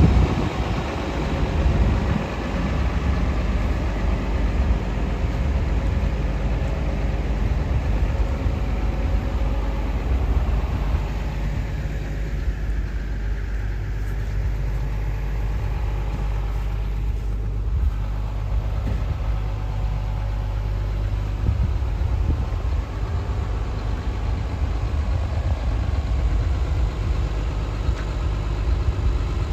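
Komatsu PC300LC-7E0 hydraulic excavator's six-cylinder diesel engine running steadily at a low, even speed.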